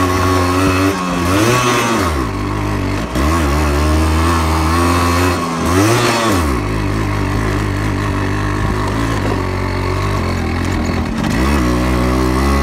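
Yamaha RX-100's two-stroke single-cylinder engine running under way on a rough dirt track. Its revs climb and drop several times as the throttle is opened and shut, with steadier running between.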